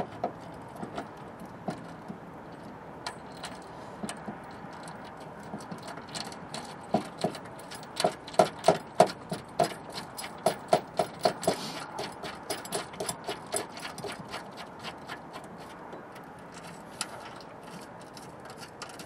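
Hand ratchet wrench clicking as a bolt is run into a threaded mounting hole, in runs of quick clicks, about three or four a second at their thickest around the middle. The threads sound dirty, with road salt and grit in them.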